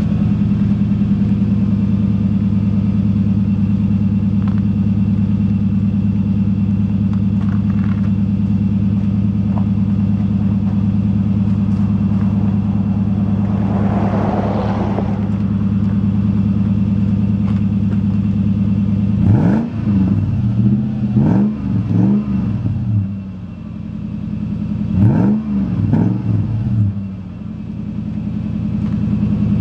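Toyota 4Runner 4.7-litre V8 exhaust through a Magnaflow 11225 muffler, idling steadily, then blipped in a quick run of four or five short revs about two-thirds of the way in. Two more revs follow near the end, and it drops back to idle.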